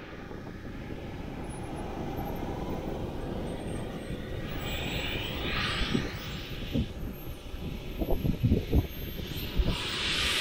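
Model jet's engine running on the ground, a steady rush whose hissing part swells twice, about halfway through and again near the end. A few low thumps in the second half.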